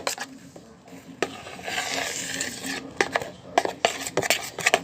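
Utensil clicking and scraping against a mixing bowl as slime is stirred, with a hiss lasting about a second near the middle.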